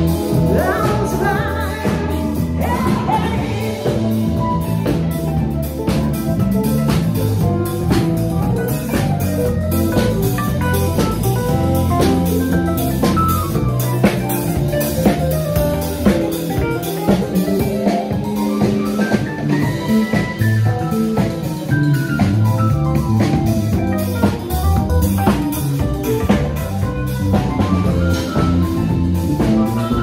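Live band playing a song: a lead singer on a handheld microphone over drum kit, bass guitar and keyboards.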